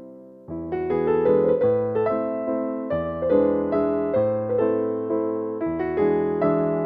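Background piano music: struck notes and chords that ring and fade, quiet at first, then fuller playing with bass notes joining about half a second in.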